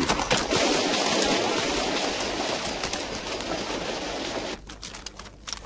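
Rushing water, pouring over a ledge, a steady dense noise that drops away suddenly near the end, leaving a quieter bed with scattered small clicks.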